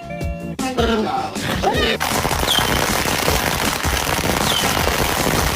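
Loud, dense run of rapid crackling pops that starts about two seconds in and goes on without a break, after a brief end of guitar music.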